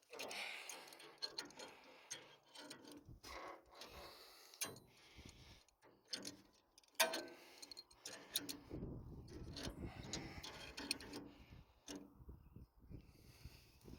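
Irregular clicks and knocks from hand-adjusting a tractor-mounted rotary mower's hitch to raise the mower and level it, one sharper knock about halfway through. A low rumble joins in about two-thirds of the way in.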